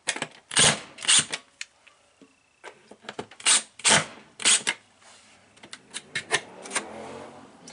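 Short, sharp mechanical clacks from a DeWalt 12-volt cordless drill-driver and its long screwdriver bit working the mounting screws of a wall-mounted controller, about five loud ones in the first half; the driver's motor starts to run near the end.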